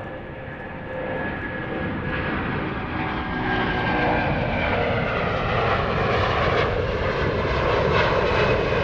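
Jet airliner passing low near the runway end, getting steadily louder. Its engine whine tones give way to a building rush of jet noise.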